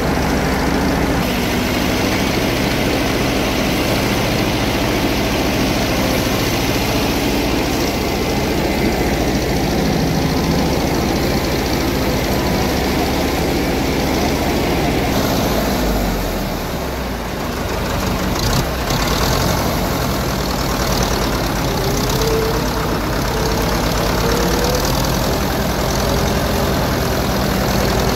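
Tractor engine running steadily as it pulls through deep floodwater, with water churning and splashing against the big tyres.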